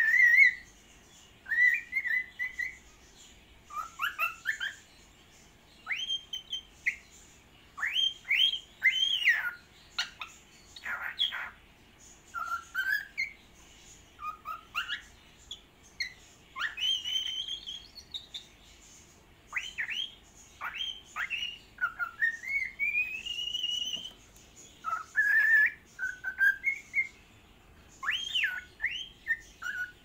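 Cockatiel singing: a long run of short whistled notes, many sliding sharply up or down in pitch, with a few longer rising whistles, in bursts separated by brief pauses.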